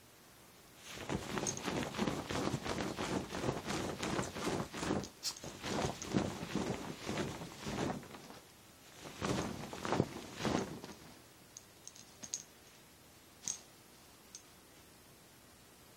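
Bedding rustling with soft thumps as a small dog scrambles and pounces on a bed, busy and irregular for about ten seconds, then dying down to a few faint clicks.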